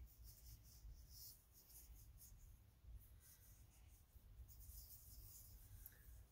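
Faint paintbrush strokes on paper, a soft scratchy brushing that comes and goes in short repeated strokes, over a low steady rumble.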